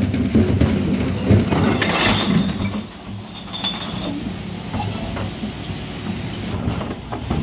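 Terberg hydraulic bin lift on a Mercedes-Benz Econic refuse lorry raising and tipping a blue wheelie bin of recycling into the hopper. For about the first three seconds there is loud clatter with a few knocks as the bin is tipped and its contents fall. After that, a quieter steady mechanical running sound as the bin comes back down.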